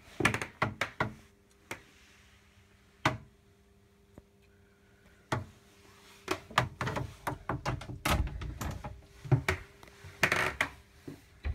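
A string of sharp knocks, clicks and thuds, a few scattered at first and then coming thick and fast over the last five seconds, typical of wooden cabin doors and joinery being handled inside a sailing yacht. A faint steady hum runs underneath.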